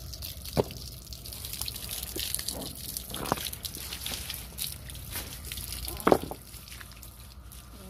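Water spraying and splashing onto paving and rocks, a steady hiss. Three sharp knocks stand out: about half a second in, about three seconds in, and about six seconds in.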